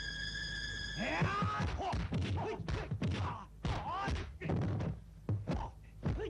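Martial-arts film fight soundtrack: a rapid, irregular run of dubbed punch and kick impact effects. They start about a second in, when a held music chord cuts off.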